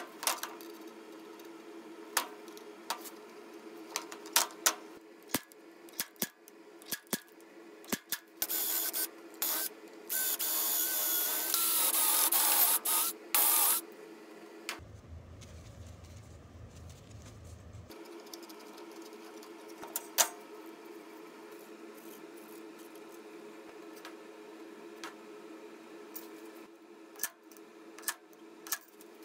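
Hand metalworking on thin galvanized sheet: scattered clicks of tin snips cutting, then about five seconds of a power drill boring through the sheet, its whine rising. Sharp single taps follow, like a center punch being struck, over a steady low hum.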